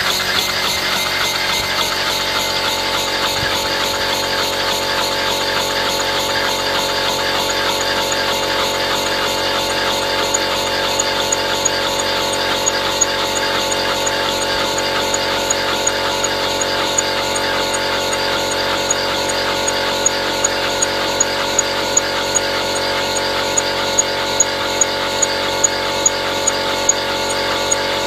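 Homemade single-cylinder, double-acting model steam engine running steadily on compressed air, with an even mechanical running sound. From about ten seconds in, sharp clicks join it, about two a second, growing louder toward the end.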